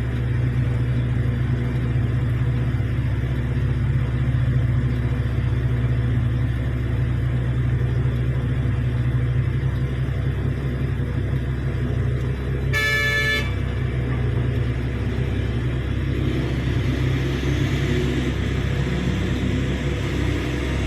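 Heavy diesel mining machinery, a large excavator loading a haul truck, running steadily with a deep drone, and a single short horn blast about two-thirds of the way through.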